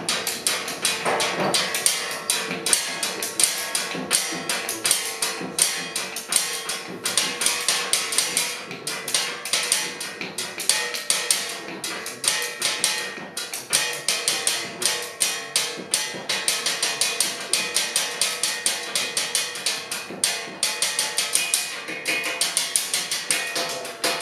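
A percussion trio playing a fast piece with drumsticks on a tabletop: a dense, unbroken stream of quick, sharp strikes in interlocking rhythm.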